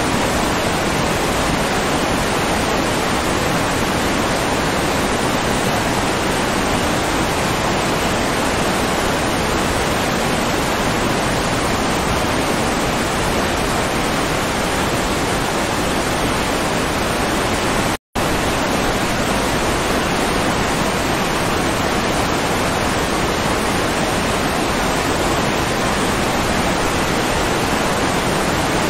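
Steady rushing water, a dense even hiss with no change in pitch or rhythm. It breaks off for an instant about eighteen seconds in, then carries on unchanged.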